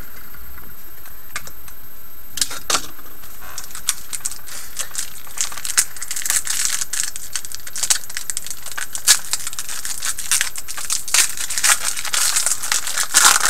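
A Panini Select hockey card pack wrapper being torn open and crinkled by hand, with the cards handled. Scattered crinkles and clicks start a couple of seconds in and grow busier from about six seconds in.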